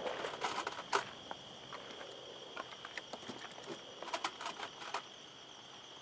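Steady high-pitched insect chorus over a quiet desert evening, with scattered sharp clicks and knocks of gear being handled: one about a second in and a cluster around four to five seconds in.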